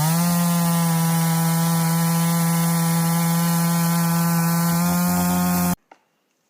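Two-stroke gas chainsaw engine revving up to full throttle, its pitch climbing briefly at the start and then holding steady and high, before cutting off abruptly near the end.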